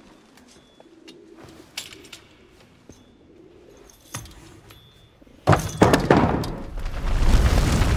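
Faint, scattered clinks and clicks over quiet room tone. About five and a half seconds in, a sudden loud boom breaks out and carries on as a heavy, swelling rumble: film explosion and fire effects for Moscow going up in flames.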